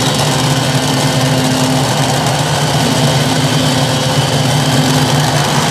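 Light modified pulling tractor's engine idling steadily, with an even, unchanging note, while it sits hitched to the weight-transfer sled before a pull.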